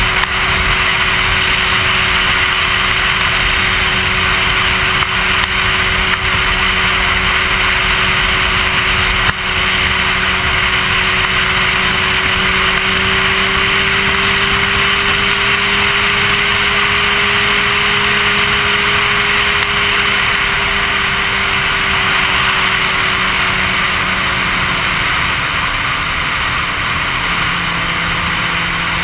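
Sport motorcycle engine running at steady highway cruise under heavy wind rush on a helmet-mounted microphone. The engine note rises a little about halfway through, then settles back.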